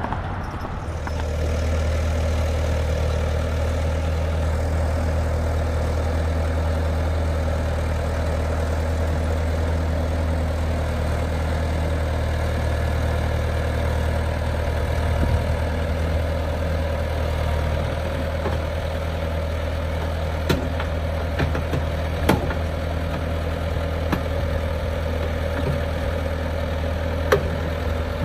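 Bobcat compact track loader's diesel engine idling steadily, with a few sharp clicks in the second half.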